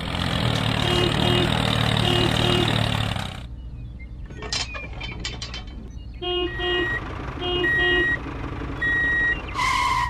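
Toy tractor engine sound running for about three seconds, then repeated electronic beeps like a vehicle's reversing alarm over a quieter engine noise, with a short two-note tone near the end.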